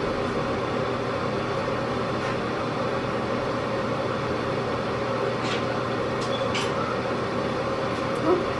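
Steady hum of a fan or ventilation unit running, with a few faint brief clicks about two-thirds of the way in.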